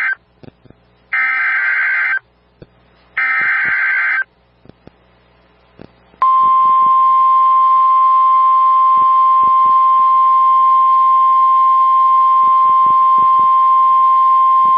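Emergency Alert System SAME header data bursts: two harsh, warbling electronic screeches of about a second each, a second apart, encoding a tornado warning. About six seconds in, the steady single-pitch NOAA Weather Radio 1050-hertz warning alarm tone starts and holds.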